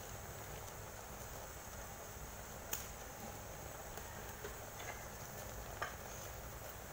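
Pork trotters simmering in braising sauce in an aluminium pot: a faint, steady bubbling hiss with a couple of small clicks.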